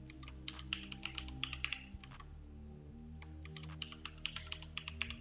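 Computer keyboard typing in two quick runs of keystrokes, each lasting about a second and a half.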